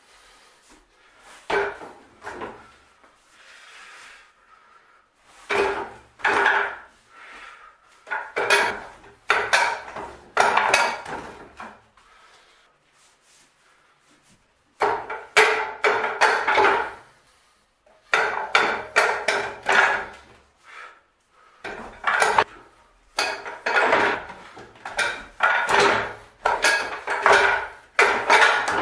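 Wooden knocks and clacks of arms and hands striking a wall-mounted Wing Tsun wooden dummy (muk yan chong), its wooden arms and trunk. The strikes come in quick flurries of several hits each, with short pauses between them.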